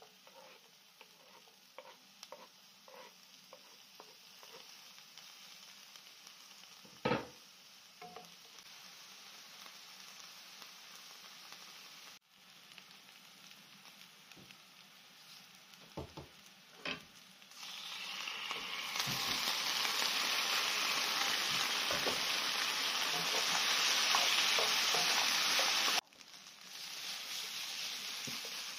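Chopped onion sizzling gently in olive oil in a nonstick frying pan, with a wooden spatula clicking against the pan as it stirs, and one louder knock about seven seconds in. Later the sizzle turns much louder and steady for several seconds as diced potatoes fry in the hot oil.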